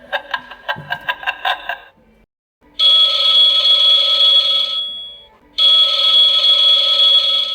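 Telephone ringtone, two rings of about two seconds each with a short pause between them, each holding a steady high tone. Before the rings comes about two seconds of rapid stuttering clicks.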